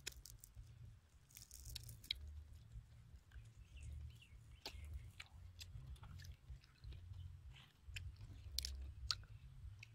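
Faint close-up eating sounds: chewing and scattered small clicks as fingers pick at grilled fish, chili sauce and rice, over an uneven low rumble.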